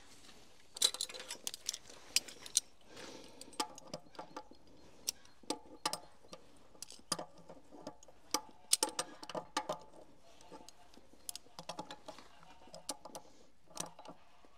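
Irregular light metal clinks and clicks from about a second in, some ringing briefly: hand tools at work on hydraulic hose fittings.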